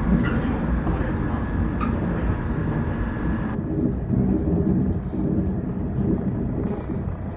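JR 415-series electric train running: a steady low rumble of wheels and traction motors. The higher hiss over it drops away suddenly about three and a half seconds in.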